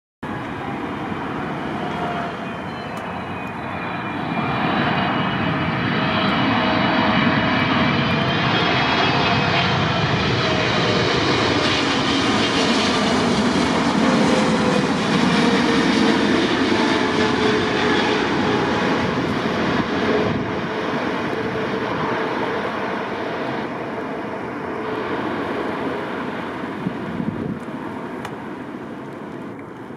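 Boeing 777-300ER's twin GE90 turbofan engines on landing approach: a jet rumble with a high fan whine that bends in pitch. It swells over the first few seconds, is loudest as the airliner passes by, then slowly fades as it goes down onto the runway.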